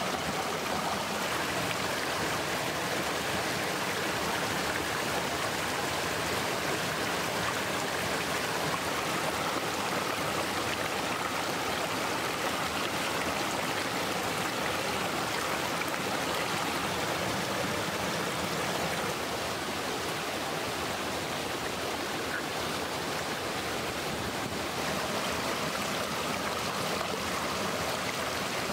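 Stream water rushing over rocks, a steady, even wash of water.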